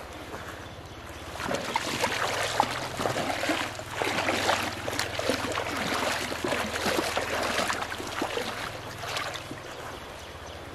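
Splashing footsteps of a person wading through shallow river water, an uneven run of splashes that picks up about a second and a half in and eases near the end.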